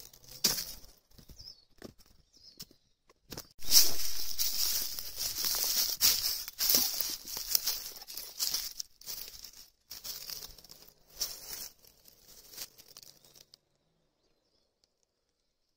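Footsteps crunching and rustling through dry fallen leaves and dead grass, uneven and at times dense, stopping abruptly near the end.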